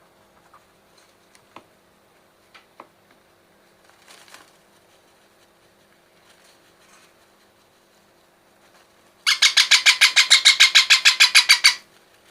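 Baby parrot giving a loud, harsh, rapidly repeated call near the end, about eight pulses a second for two and a half seconds. Before it, only a few faint clicks.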